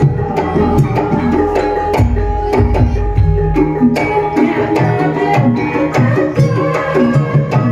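Javanese gamelan ensemble playing a gending: bronze metallophones and gongs strike ringing pitched notes over kendang hand-drum strokes, with deep low booms through the first four seconds.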